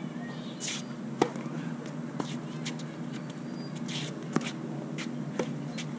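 Tennis rally on an outdoor hard court: sharp racket strikes and ball bounces about once a second, the loudest about a second in. Shoe scuffs on the court come in between, over a steady low hum.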